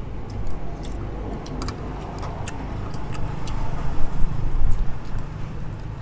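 Light clicks of chopsticks and spoons against bowls and an aluminium pot of noodles, over a low steady rumble that swells about four seconds in and then eases off.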